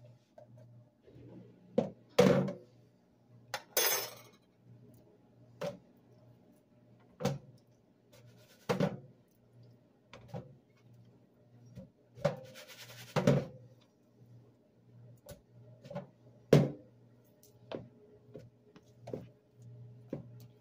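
Irregular knocks and clatters of a plastic food container and a plastic cutting board being handled at a stainless steel kitchen sink as slices of raw deer heart are moved into the container, about fifteen separate knocks with two longer, hissier noises among them. A faint low hum runs underneath.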